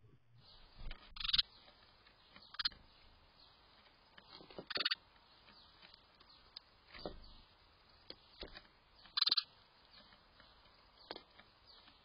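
House sparrows giving short, sharp chirps now and then, the strongest about a second in, near five seconds and near nine seconds, with a few soft knocks of birds on the wooden feeder table in between.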